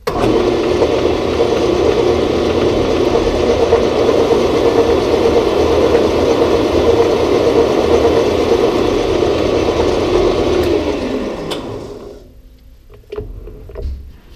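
Grizzly G0602 bench lathe running under power while turning a steel bar. It starts abruptly, runs steadily for about eleven seconds, then is switched off and winds down. A few light knocks follow near the end as the workpiece is handled.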